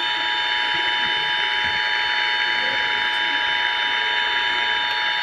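Emergency Alert System attention signal: the two-tone 853 Hz and 960 Hz alert tone held steady, with a steady hiss behind it.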